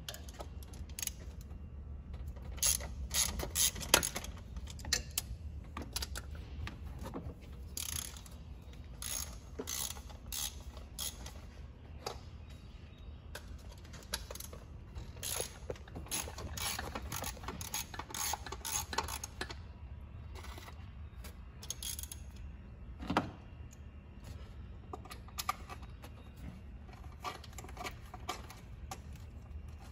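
Hand ratchet clicking in short runs as the valve cover bolts on a Chevy 305 small-block are run down, with metal clinks from tool and bolts and one sharper knock about two thirds of the way through. A steady low hum runs underneath.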